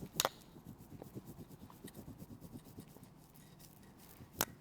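Metal Graston scraping tool drawn over the skin of the neck and shoulder muscles in faint, repeated scraping strokes. Two sharp clicks stand out, one just after the start and one near the end.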